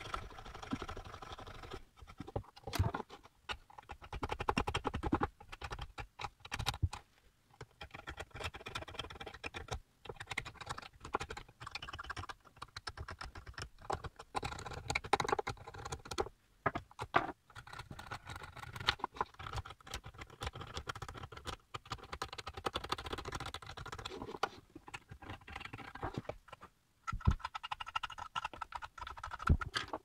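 Toothbrush bristles scrubbing the metal base plate and terminals of an electric kettle's heating element in quick, irregular strokes, with sharp clicks and knocks as the parts and spade connectors are handled. The scrubbing comes in several stretches with short pauses between them.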